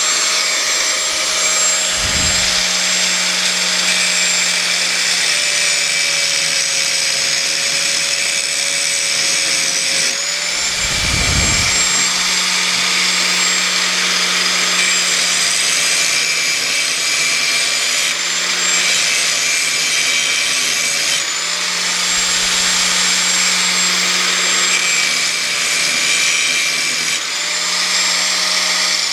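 Grinder running steadily as it grinds a V-groove along a crack in a brass check valve casting, dipping briefly a few times as the tool eases off the work.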